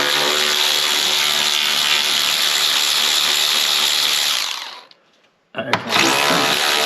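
Handheld power tool spinning out a 10 mm bolt. It runs steadily, winds down and stops about five seconds in, then starts up again on the second bolt.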